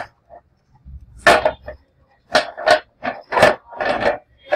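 The plastic top cover of a UPS being fitted by hand onto its casing, scraping and rubbing against it in about four short strokes.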